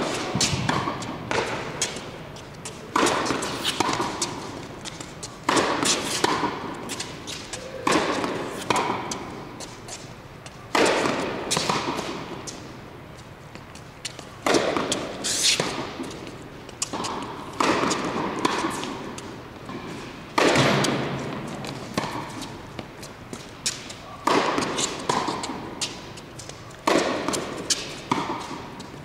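Tennis ball struck by a racket and bouncing on an indoor hard court, sharp pops that ring out in the large hall. The impacts come in close pairs, a second or less apart, every two to three seconds as the rally goes on.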